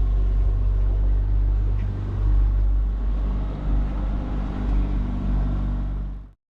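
Steady low rumble of a motor vehicle's engine heard from inside the vehicle while it is moving. It cuts off suddenly near the end.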